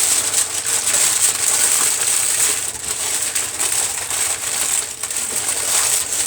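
Aluminium foil and parchment paper crinkling and crackling continuously as they are pressed down and folded tightly around a sub sandwich.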